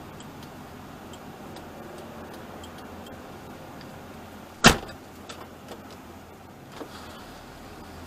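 A single sharp thump a little past halfway through, much louder than anything else, followed by a few lighter clicks over a steady low hum.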